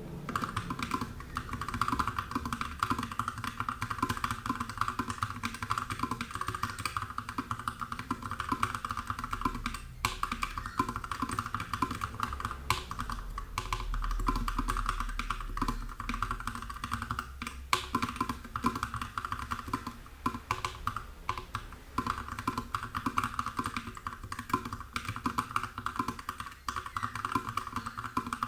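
Continuous typing on an Input Club K-Type mechanical keyboard with lubed 68 g Holy Sky tactile switches (Outemu Sky housing and spring, Halo stem) under DSA keycaps, the case foam-modded and the PCB band-aid-modded. The keystrokes come as a dense, uneven run of clicks.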